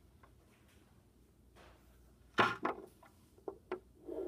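Handling noise from fingers on a phone: a rubbing thump a little past halfway, then two short light clicks.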